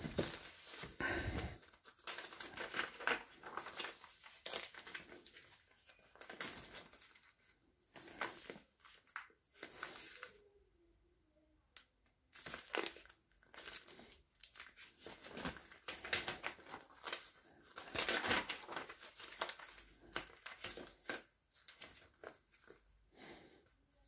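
Sheets of A4 office paper being leafed through and turned one after another, rustling and crinkling in irregular bursts. The paper is dented and torn by bullet impacts. There is a short pause a little before the middle.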